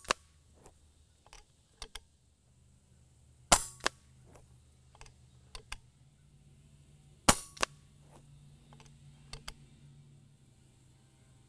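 Two shots from an FX Royale 400 .22 regulated PCP air rifle, about four seconds apart, each a sharp crack. Each is followed about a third of a second later by a fainter crack, the pellet striking the 50-yard target. Light clicks between the shots come from the rifle being handled and reloaded.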